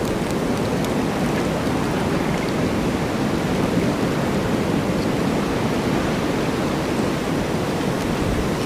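Snowstorm wind: a dense, steady rush with no distinct gusts.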